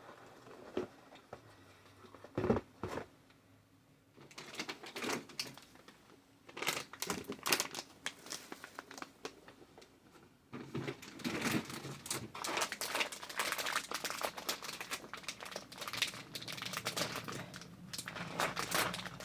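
Crinkly packaging being handled and rustled: a few light knocks at first, then scattered crinkling that becomes near-continuous from about halfway through.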